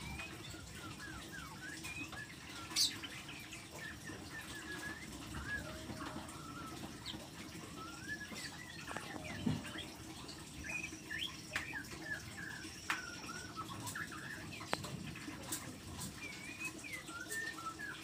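A small songbird giving many short chirps and quick twittering notes, scattered and irregular, with a few sharp clicks among them.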